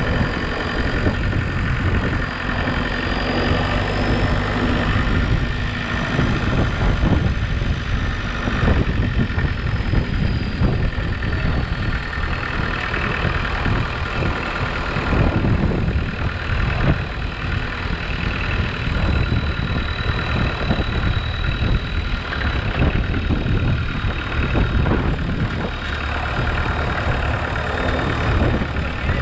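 Homemade four-wheel-drive tractor's engine running steadily while the tractor drives with a loaded front-loader bucket, heard close up from the driver's seat.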